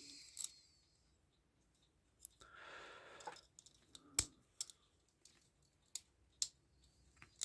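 Scattered light clicks and taps of small metal clock-movement parts being handled as a wheel is fitted between the plates, with a short soft rustle about two and a half seconds in.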